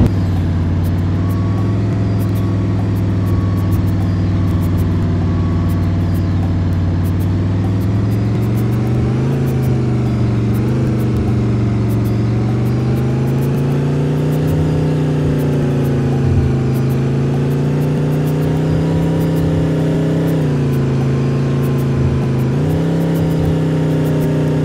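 Bus engine running while driving, its pitch slowly rising and falling with engine speed and jumping up abruptly a few times.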